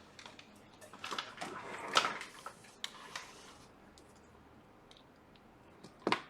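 Handling noise from connecting an iPhone to a charger: a run of small clicks and rustling about a second in, then two sharp clicks near the end.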